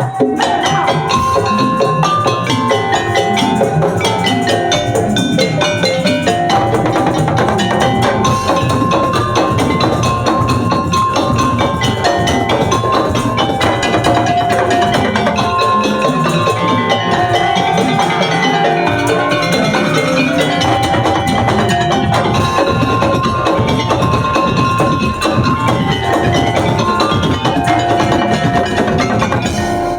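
Madurese tongtong (daul) ensemble playing: wooden slit drums and drums beat a dense, steady rhythm under a repeating high melody line.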